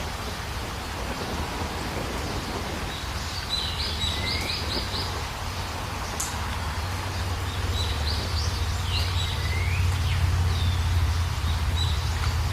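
Birds calling: short rising chirps and quick runs of high notes, a few seconds apart, over a steady low rumble and hiss.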